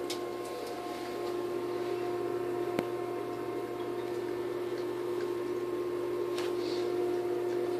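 Steady electrical hum holding a few fixed tones, with one sharp click a little under three seconds in.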